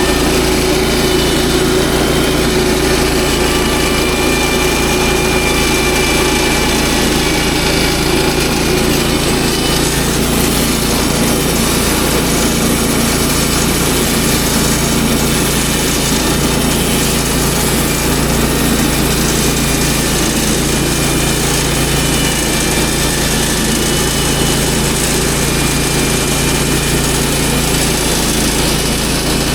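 Woodland Mills HM122 portable band sawmill's small gas engine running steadily under throttle.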